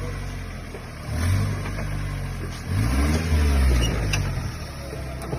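Off-road jeep engine revving in two surges as it crawls over rocks, the second climbing and falling in pitch.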